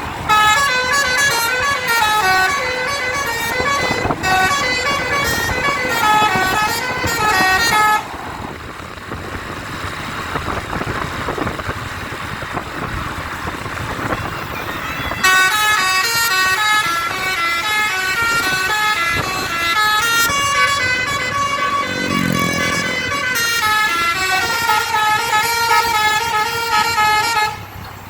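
Basuri musical air horns on Sindurama buses playing a melody in quick stepped notes for about eight seconds. A stretch of engine and road noise without the tune follows, then the melody plays again for about twelve seconds and cuts off suddenly near the end.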